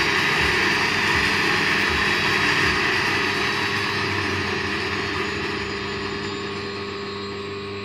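A homemade band saw driven by a 4 kW spindle, its rusty blade running on wheelbarrow-wheel pulleys, cutting through a block of polystyrene. It makes a steady noisy running sound with a steady hum under it, and grows quieter over the last few seconds.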